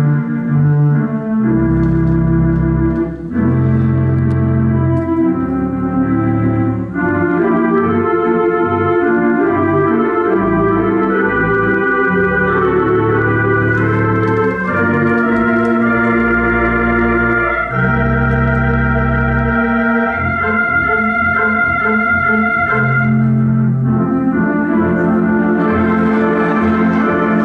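Theatre organ playing live silent-film accompaniment: sustained chords that change every second or two over deep bass notes.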